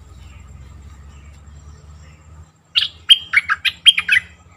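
A bulbul, the caged decoy bird, sings one quick phrase of about eight bright whistled notes starting a little past halfway. Before it there is only a faint low rumble.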